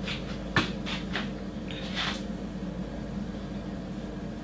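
Fingers rustling through dry curly hair in a few short strokes, with one sharp knock about half a second in, over a steady low hum.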